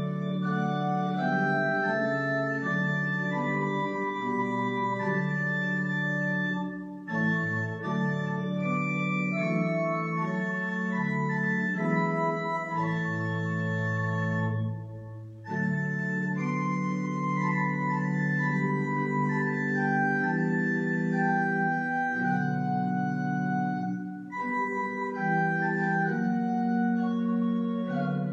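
Organ playing slow, sustained chords, the opening music before a church service, with brief breaks between phrases about 7, 15 and 24 seconds in.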